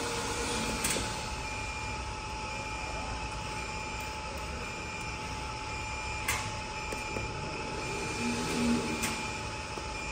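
Powered-up CNC router standing idle: a steady electrical hum with a constant high whine and a fainter tone that pulses on and off about once a second. Three short sharp clicks, about a second in, past the middle and near the end.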